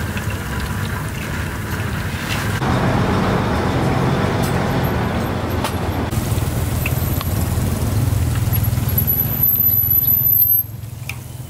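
Road vehicle engine running close by, a steady low rumble of street traffic. It grows louder a little over two seconds in and drops away suddenly near the end.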